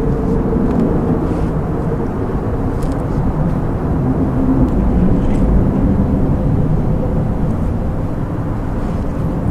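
Steady drone of road traffic on the bridge overhead: a continuous low rumble with a faint hum, swelling slightly around the middle.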